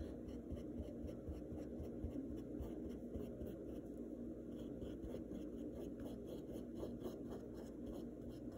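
Small paintbrush dabbing short strokes of paint onto a canvas: a faint, repeated brushing scratch, about three strokes a second.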